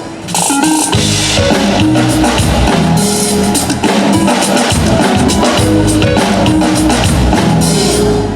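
Amplified pop band music over a stage PA during a sound check: a steady drum-kit beat with kick and snare under a moving bass line and held chord notes, with no singing.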